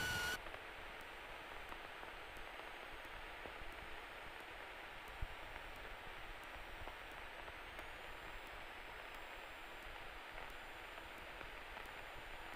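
Faint steady hiss of static on the aircraft's radio and intercom audio feed, with a single short click about five seconds in.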